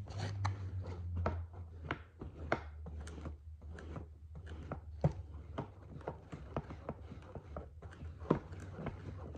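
Irregular light taps and clicks of small craft materials and tools being handled on a tabletop, a few louder knocks among them, over a steady low hum.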